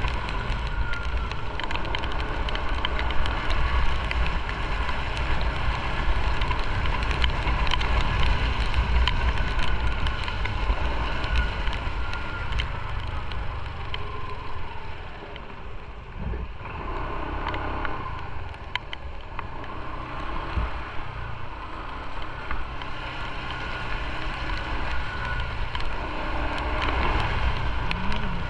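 Motorcycle engine running at low speed, with wind on the microphone and tyres on a wet road. The level drops for a few seconds around the middle as the bike eases off, then picks up again.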